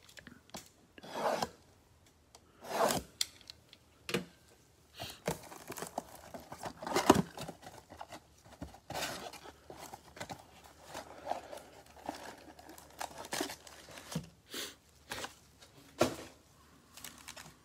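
A cardboard trading-card box being torn open, its plastic wrap ripped and its inner flap pulled up, then foil card packs slid out onto the table: a string of short tearing, rustling and crinkling sounds.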